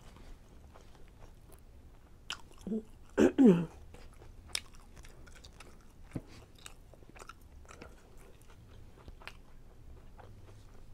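Close-miked chewing of a chicken fajita in a tortilla, with many small wet mouth clicks and smacks. About three seconds in there is a brief hum of enjoyment that falls in pitch.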